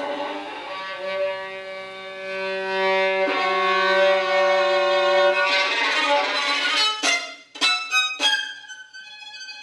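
Solo violin playing a contemporary piece: sustained double-stopped notes over a low held note, turning scratchy and noisy about five and a half seconds in. It ends with a few short, sharp bow attacks and a quieter high held note.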